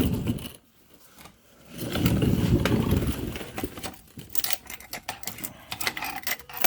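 Handling noise from work under a car during an oil change: a louder rustling scrape about two seconds in, then a run of light, quick clicks and rattles.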